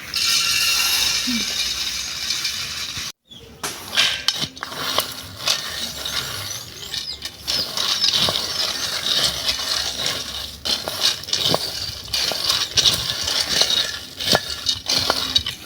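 Groundnuts being stirred while they dry-roast in a pan on a charcoal stove, the nuts clinking and rattling against the pan in many quick irregular clicks.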